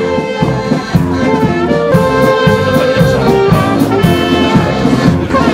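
Brass band music: trumpets and trombones playing held melody notes over a steady beat.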